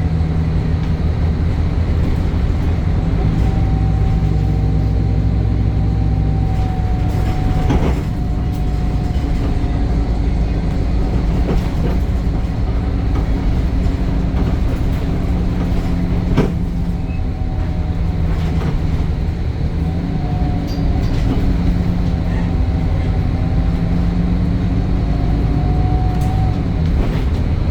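Temsa Avenue LF 12 city bus under way: its DAF Euro 5 diesel engine runs with a steady low drone, and a whine rises and falls in pitch several times as it drives. Two sharp knocks come about 8 and 16 seconds in.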